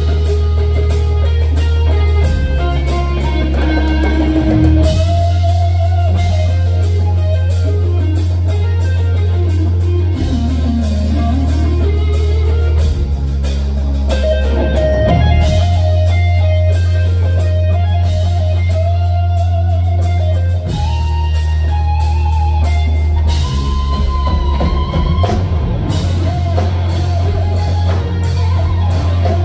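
Live instrumental rock band: a lead electric guitar plays a melody with pitch bends, swooping down and back up about ten seconds in, over sustained bass notes and a drum kit.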